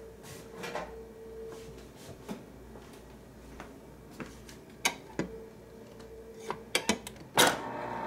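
Scattered light clicks and a faint hum that comes and goes, then near the end a loud mechanical buzz as a glass is pushed against the paddle of a GE side-by-side refrigerator's door dispenser, which is set to ice rather than water.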